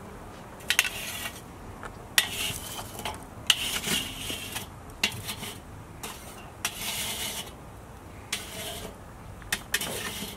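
Metal charcoal baskets, tongs and an ash tool clinking and scraping on a Weber kettle's charcoal grate as burning briquettes are tipped out and pushed into one pile. The sound comes in about seven short, irregular bursts of rattling and scraping with a few sharp clicks.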